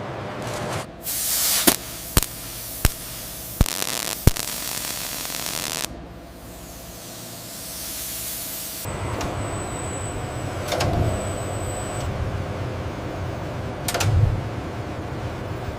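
Short hisses and a run of five sharp clicks, then a low mechanical rumble with a thin high whine for a few seconds and a couple of dull thumps.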